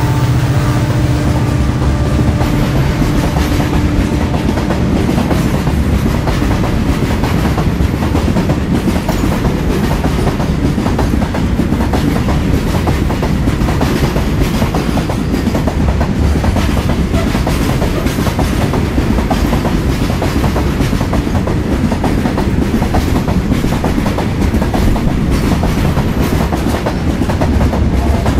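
Loaded freight wagons rolling past at speed, their steel wheels clattering over the rail joints in a rapid, continuous clickety-clack over a low rumble. The passing diesel locomotives' engine note fades out over the first few seconds.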